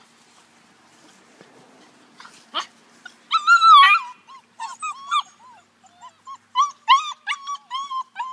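Hound puppies crying. High pitched cries start about two and a half seconds in: first a long one, the loudest, then a quick string of short cries that rise and fall.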